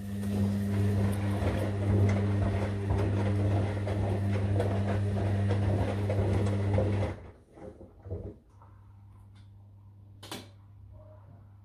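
Sangiorgio S5510I front-loading washing machine's drum tumbling sheets in water: the motor hums steadily under sloshing and churning, then stops abruptly about seven seconds in. After that a faint steady hum remains, with a couple of brief knocks or splashes as the wet laundry settles.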